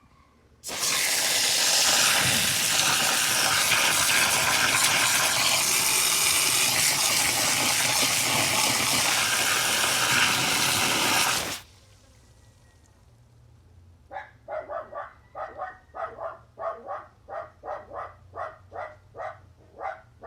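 Water gushing steadily, starting abruptly and cutting off suddenly after about eleven seconds. A few seconds later a dog starts barking over and over, about two barks a second.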